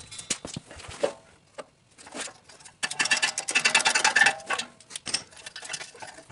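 Ratchet wrench clicking rapidly for about a second and a half as a muffler bolt is worked loose, with a few scattered metal clicks and scrapes before it.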